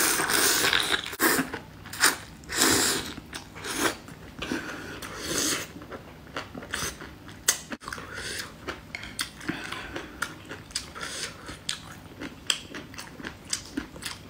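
A person eating from a bowl of noodles and vegetables in spicy broth: several long slurps in the first half, then chewing with many small wet mouth clicks.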